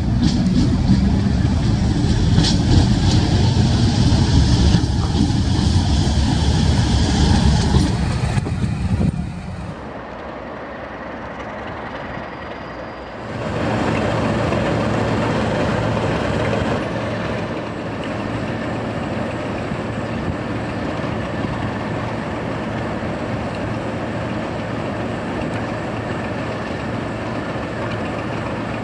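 Class 37 diesel locomotive hauling a train along the platform, its engine running with wheel and rail noise and a brief high squeal early on. The sound drops sharply about nine seconds in; from about thirteen seconds the locomotive's diesel engine runs on steadily with a low hum.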